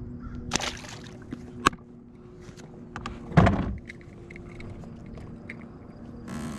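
Knocks, rustling and sharp clicks of handling on a fishing kayak, with a faint steady low hum underneath. A louder burst of noise comes about three and a half seconds in.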